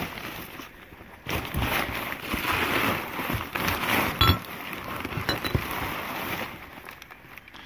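Crumpled newspaper packing rustling and crinkling as a gloved hand digs through a cardboard box of old glass bottles, with a sharp glass clink about four seconds in and a lighter tink a second later.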